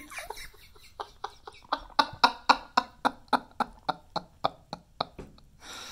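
Guinea pig chewing and smacking its mouth close to the microphone: a run of short, even clicks at about four a second. The owner takes it as the guinea pig getting the taste of his own droppings out of his mouth.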